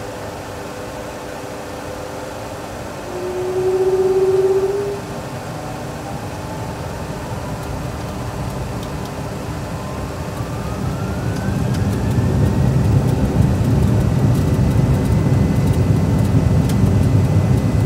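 Simulated CFM56 turbofan engines of a Boeing 737 Classic flight simulator spooling up for takeoff. Their whine rises in pitch, pauses where thrust stabilises at about 40% N1, then climbs again to takeoff thrust and holds. A low rumble of the takeoff roll builds under it, and a short loud hum comes about three seconds in.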